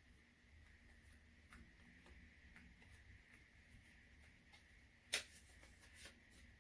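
Near silence with faint scattered clicks and rustles of an item being handled, and one sharper click about five seconds in, over a faint steady high hum.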